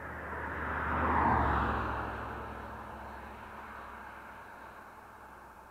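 A car passing close by on the road: its tyre and engine noise swell to a peak about a second in, then fade slowly as it drives away.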